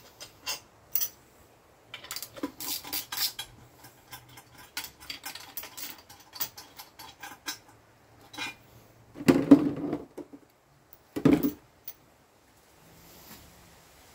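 Light metallic clinking and tapping of tools and bolts on the aluminum intake manifold as its hold-down bolts are undone, followed by two louder knocks in the second half.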